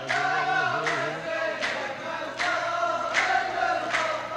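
A row of men chanting the poet's verse back in unison, as in a Saudi mohawara (tarouq) poetry exchange. Sharp claps keep a steady beat, a little faster than one a second.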